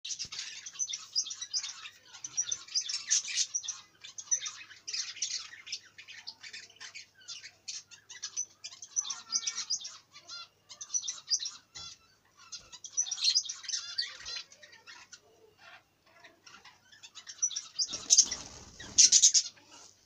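A flock of budgerigars chattering: a dense, continuous stream of high chirps and warbles from many birds at once. A louder burst of noise comes about two seconds before the end.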